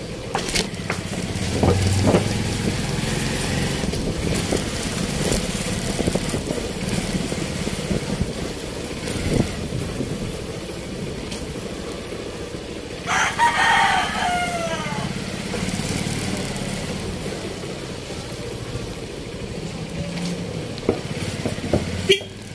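Steady street-traffic noise of passing vehicles' engines, with a rooster crowing once just past the middle, its call falling in pitch at the end.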